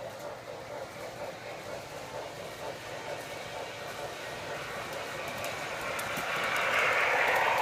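O scale model train rolling along its track, its running noise growing steadily louder as it approaches and loudest about seven seconds in.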